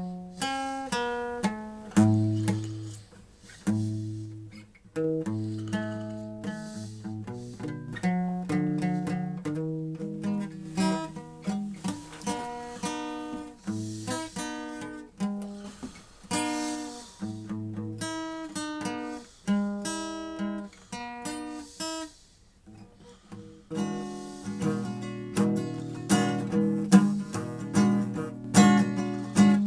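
Acoustic guitar music: plucked notes and chords that ring and fade, with a short lull about two-thirds of the way through before fuller strummed chords.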